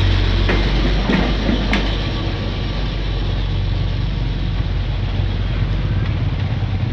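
KRDI Madiun Jaya diesel multiple unit running past and pulling away, its diesel engine giving a steady low drone that eases slightly as it moves off. A few sharp clacks of the wheels over rail joints come in the first two seconds.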